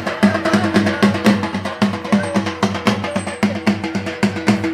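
Barrel-shaped hand drum (dholak) played in a fast, even rhythm of about four to five strokes a second, with a steady held note over it, accompanying a Rajasthani string-puppet dance.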